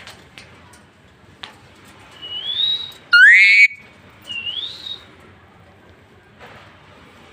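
Pet parrot whistling: a rising whistle, then a much louder rising whistle that starts and stops sharply, then another rising whistle.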